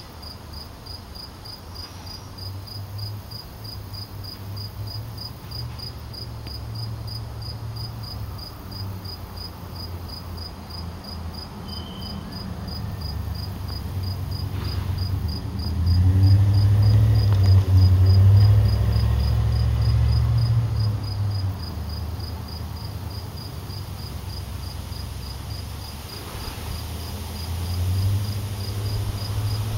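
A cricket chirping steadily, about three chirps a second, with a fainter, higher insect trill at times. Under it runs a low rumble that swells for several seconds in the middle, and again near the end.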